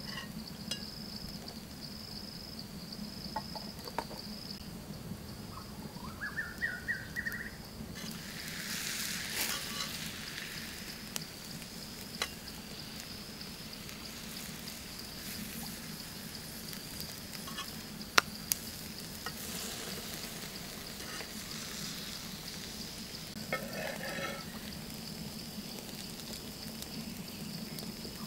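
Pig's liver sizzling on a hot cooking stone, with sharp clicks and taps now and then and a denser spell of sizzling about eight seconds in. A steady high-pitched tone runs underneath.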